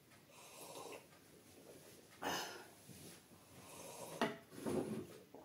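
A person drinking from a mug held at the lips: a run of sips and swallows, the loudest sip about two seconds in and a short click a little after four seconds.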